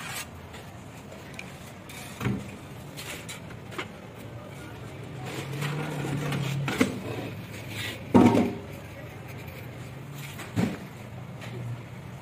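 Indistinct background voices with a few sharp knocks and clatters; the loudest knock comes about eight seconds in.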